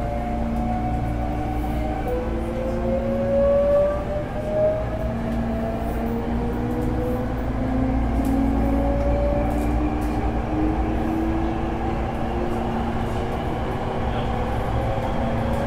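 Hankyu 8300 series electric train's Toyo GTO-thyristor VVVF inverter and traction motors whining as the train accelerates, the whine climbing in pitch and dropping back once about two seconds in before climbing again. Underneath run the steady rumble of the wheels on the rails and the hum of the car's air conditioning.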